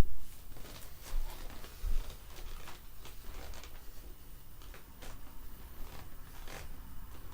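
Faint rustling with a few soft knocks, about one and two seconds in, from moving about in a pair of stiff new off-road riding boots.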